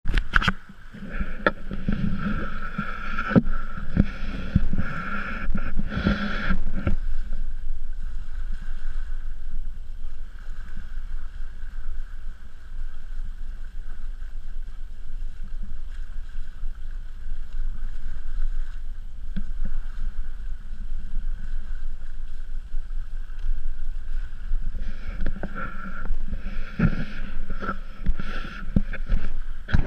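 Wind buffeting a handheld camera's microphone high up a sailboat's mast: a steady low rumble. Knocks and rubbing from the camera pole come in the first seven seconds and again in the last five, with a calmer stretch between.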